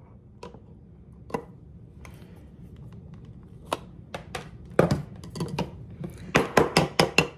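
Kitchen clatter: sharp knocks and taps of utensils and a glass jar being handled on the counter, a few at first, then several in quick succession in the second half.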